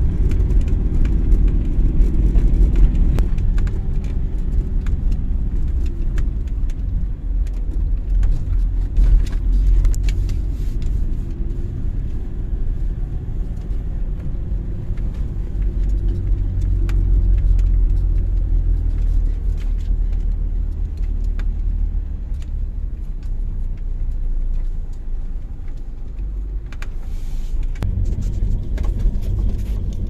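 Car driving slowly over a rough dirt track, heard from inside the cabin: a steady low rumble of engine and tyres, with scattered short clicks and rattles.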